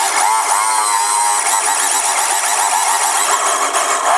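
Electric drill running under load as a toothed hole-saw bit bores into a pine board. The motor's pitch wavers for about the first second as the bit bites in, then holds steady until it stops right at the end.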